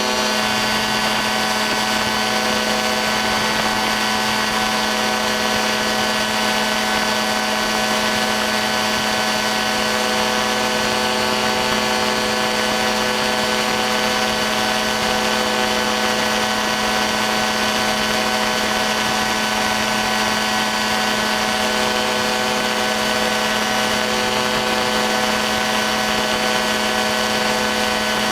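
Ultralight aircraft engine and propeller running steadily at cruise, a constant drone that holds one pitch throughout.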